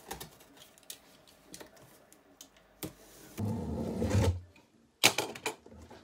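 A cardboard box being opened: a box cutter slitting the packing tape, with small clicks and a longer scrape across the box. A sudden, louder rustle of cardboard and tape about five seconds in as the flaps are pulled open.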